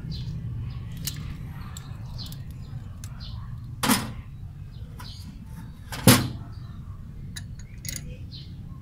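Hand tools clicking and clinking against the valve gear of a Toyota 4K engine during valve clearance adjustment, with two sharp metallic knocks about four and six seconds in, over a steady low hum.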